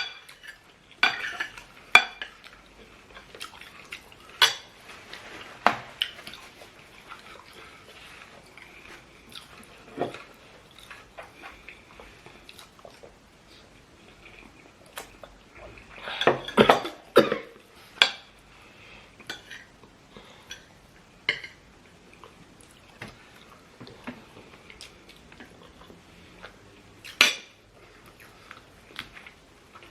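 Cutlery clinking and scraping against plates during a meal: irregular sharp clinks, a quick run of them about halfway through and a loud one near the end.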